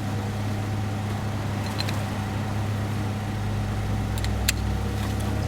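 Vehicle engine running steadily with a low, even hum, growing heavier about four seconds in, and one sharp click about four and a half seconds in.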